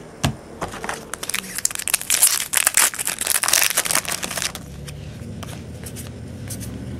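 Foil trading-card pack wrapper crinkling loudly as the pack is opened, a dense crackle for about three seconds that dies down a little past the middle.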